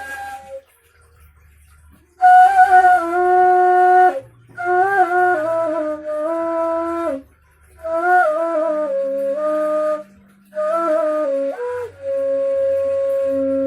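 Homemade PVC-pipe ney flute played in short breathy phrases with ornamented turns between notes, with brief pauses between phrases and a long held note near the end.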